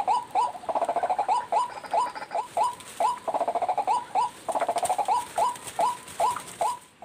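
White-breasted waterhen calling: a steady run of short hooked notes, about three a second, broken by brief faster chattering runs. It cuts off suddenly at the end.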